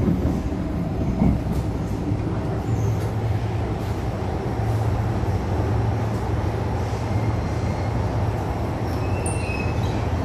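MTR M-Train, a Metro-Cammell electric multiple unit, running at speed, heard from inside the passenger car: a steady rumble of wheels and running gear, with a low hum joining about three seconds in.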